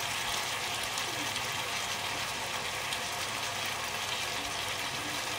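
Steady hiss of chicken feet simmering in a spicy sauce in a wok on low heat.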